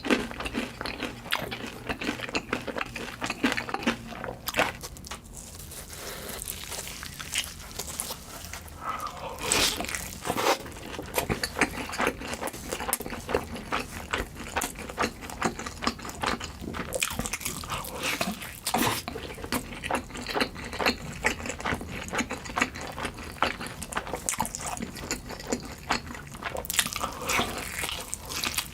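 Close-miked eating sounds: chewing and biting food, with a steady run of small crackles and wet mouth noises.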